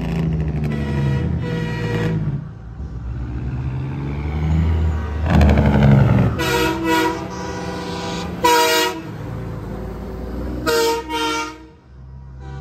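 Semi trucks' air horns blasting in a series of short and longer chords as the trucks drive past, over the low rumble of their diesel engines, which swells as a truck goes by about five to six seconds in.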